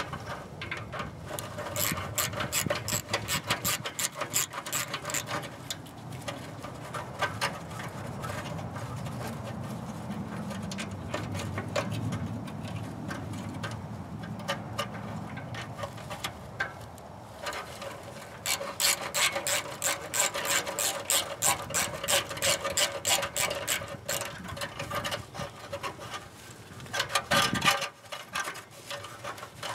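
Hand socket ratchet on a long extension, turning a bolt under a car. It clicks in runs of rapid strokes, with a quieter pause of about ten seconds in the middle and a last short run near the end.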